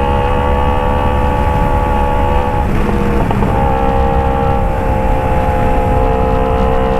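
Kawasaki Ninja 250 FI's parallel-twin engine running through a Phoenix aftermarket exhaust, held at a steady engine speed, with a brief wobble in pitch about three seconds in.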